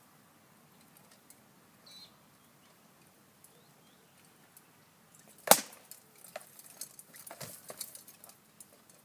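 Rattan sword blows landing on shields and armour in SCA heavy combat: one loud sharp crack about five and a half seconds in, then a flurry of lighter knocks and clatters over the next few seconds.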